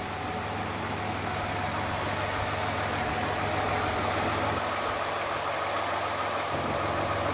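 Car engine idling steadily, purring evenly. It is running again after a no-start that gas treatment and priming the fuel pump cured.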